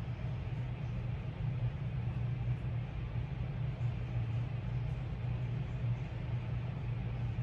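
Steady low hum with a faint hiss over it, even throughout, like a fan or electrical background noise.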